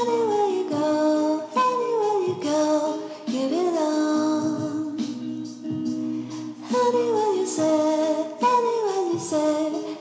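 Background music: a slow melody of phrases that each slide downward in pitch, over a steady low held tone.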